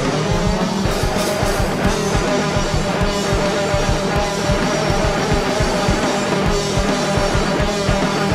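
Loud noise-rock band recording: distorted electric guitars over a drum kit playing a fast, steady beat.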